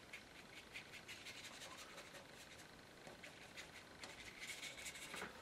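Faint dabbing and scratching of a fine paintbrush on paper: a run of soft, light ticks, a little busier about four seconds in.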